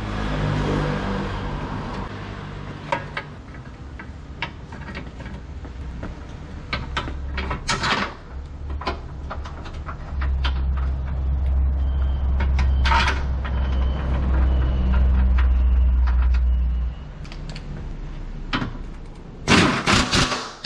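Scattered metal clinks and knocks of hand work on the underside of a car, over a low steady hum that grows louder about halfway through. Near the end a pneumatic impact wrench rattles in loud short bursts on a bolt of the lower rear engine mount.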